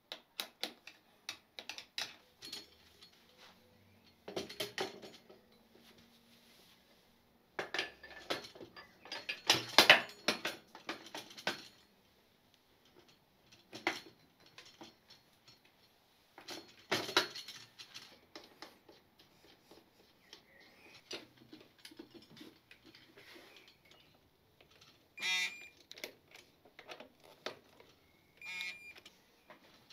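Hand tools and metal parts being worked on a motorcycle's front end during reassembly: scattered metallic clicks, clinks and clattering, loudest about a third of the way in. Near the end come two short runs of quick, even ticks from a ratchet or torque wrench.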